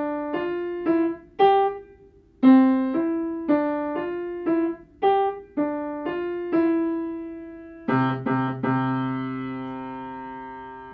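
Piano played by a student: short rising figures of single notes in the right hand, then about eight seconds in two quick low bass notes and a held final note that rings on and fades as the piece ends.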